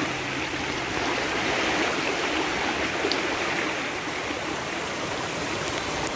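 A flood-swollen, muddy hill stream rushing over rocks in heavy rain: a steady rush of water.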